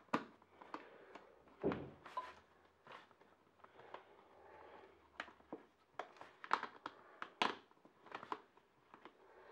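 Scattered clicks and knocks of hands working airbox parts as a new air filter is pressed into place in a Suzuki Bandit 1200's airbox, with a heavier thunk about two seconds in.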